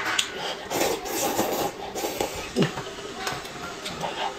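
Noodles being slurped from a self-heating hotpot, with chopsticks clicking and scraping against the plastic bowl in irregular bursts.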